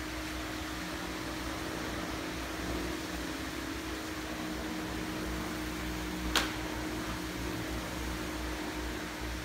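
Steady hum and hiss of background room noise, like a ventilation fan, with one sharp click about six seconds in.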